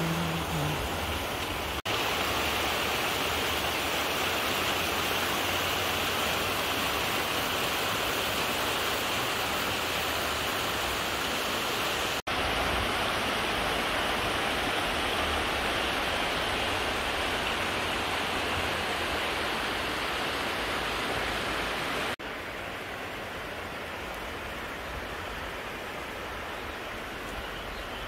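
Shallow mountain river rushing over a rocky, stony bed: a steady, even rush of water, a little quieter in the last few seconds.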